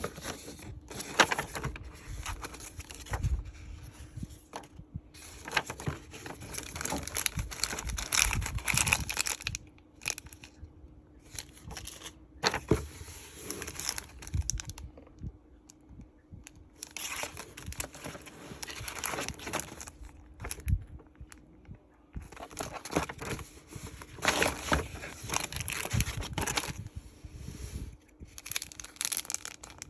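Packaging crinkling and tearing in irregular bursts with sharp crackles, as a package is unwrapped by hand, with short pauses between bouts of handling.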